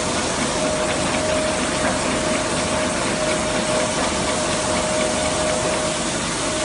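TRUMPF TC 500 R CNC turret punching machine running without punching: a steady mechanical hum and hiss with a steady mid-pitched whine that drops out briefly about six seconds in.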